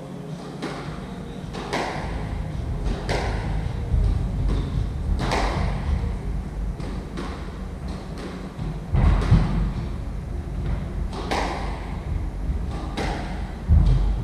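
Squash rally: the ball cracking off rackets and the court walls every one to two seconds, each strike echoing in the court, with a few heavy low thuds from players on the wooden floor, the loudest near the end.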